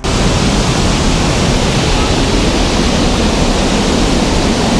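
Steady, loud rush of water pouring down a waterfall, heard close up; it cuts in suddenly at the start.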